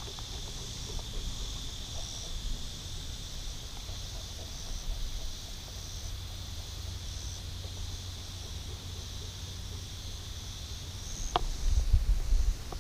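Insects buzzing in a steady high drone, with a fainter pulsing layer above it.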